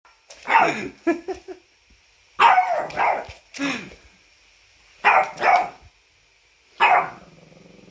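French bulldog giving short barking, whining calls, many falling in pitch, in four bunches with brief pauses between them.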